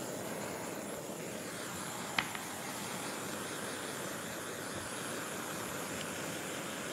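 Kitchen blowtorch running with a steady hiss while it caramelizes sugar sprinkled on banana slices. A short click about two seconds in.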